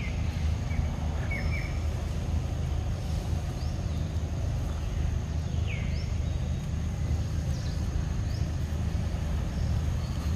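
Outdoor ambience: a steady low rumble with scattered short, high bird chirps, one a falling whistle about halfway through.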